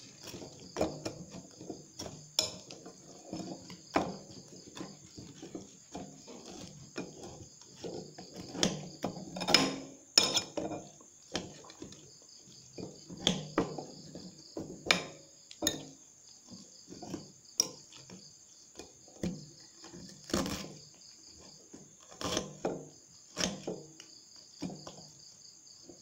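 Metal spoon clinking and scraping in a glass bowl of noodles with wafer rolls being stirred, in irregular knocks, the loudest about ten and twenty seconds in. Crickets chirp steadily in the background.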